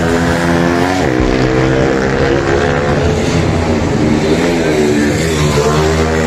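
Pit bike racing motorcycles' single-cylinder engines revving through a corner: the pitch drops sharply about a second in as the rider shuts off, then runs steadily and climbs again near the end as the next bike comes through.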